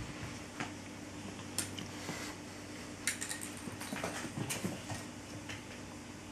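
A cat batting a small toy across a hardwood floor: a scatter of light clicks and taps, most of them between about three and five seconds in, over a steady low hum.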